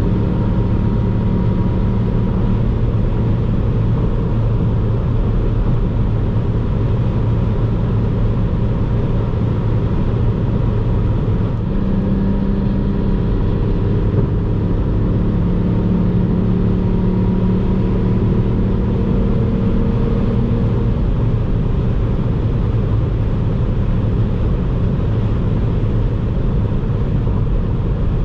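Ford Fiesta ST's 1.5-litre turbocharged three-cylinder engine and tyres at steady autobahn cruising speed, heard from inside the cabin as a continuous low drone. A fainter engine note wavers slightly in pitch about halfway through.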